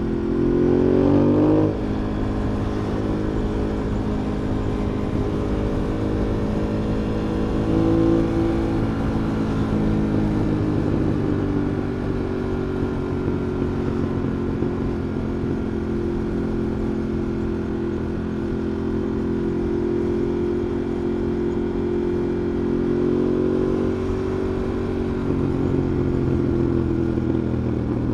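Ducati Monster 821's L-twin engine under way in town, heard from the rider's backpack. It revs up briefly at the start and drops sharply as the throttle comes off, then runs at steady, moderate revs with gentle rises and falls.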